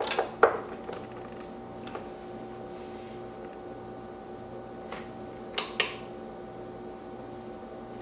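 SetPower AB15 portable fridge, just plugged in, running with a steady hum of several tones. Its power cord and adapter are handled over it, giving a few clicks and knocks: a cluster at the start and a sharp double click about five and a half seconds in.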